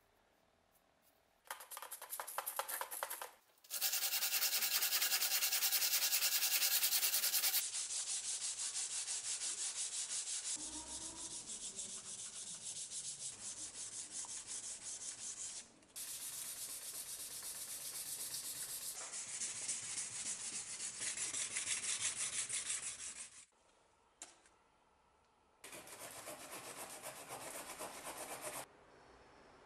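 Sandpaper rubbing back and forth over a steel knife blade in rapid strokes: hand sanding of the blade after hardening. The rubbing comes in several stretches that start and stop abruptly, with a short quiet gap near the end.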